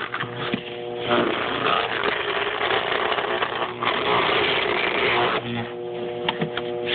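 Electromagnetic hard drive degausser running while a drive is passed over its plate to erase it: a loud, rough electrical buzz that drops back to a steady hum near the start and again from about five and a half seconds in.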